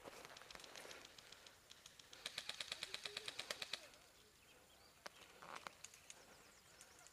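Airsoft electric rifle firing one full-auto burst of about fifteen rapid shots, roughly ten a second, about two seconds in; a couple of faint single clicks follow later.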